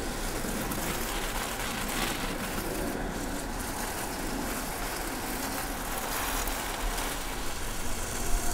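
Water spraying from a garden hose nozzle onto the ground in a steady, even hiss.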